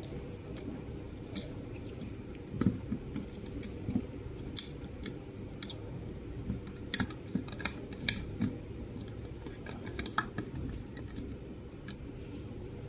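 Irregular small metallic clicks and ticks of a screwdriver working the hinge screw on a security camera's plastic wall bracket, tightening the camera in place. A steady low hum runs underneath.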